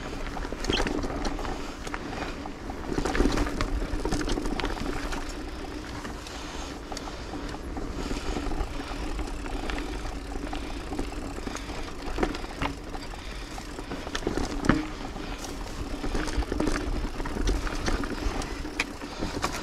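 Mountain bike rolling over a dirt singletrack: tyre noise over the trail, with frequent clicks and rattles from the bike over bumps, and a low rumble of wind on the microphone.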